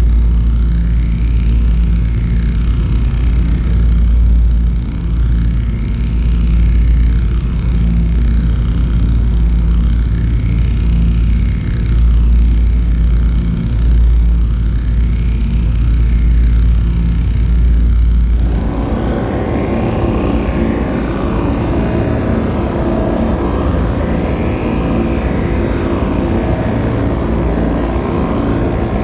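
Electronic ambient drone: a heavy deep rumble under slow arching pitch sweeps that rise and fall about every two seconds. About eighteen seconds in, the deep rumble drops away and a brighter, fuller layer takes over, with the sweeps still going.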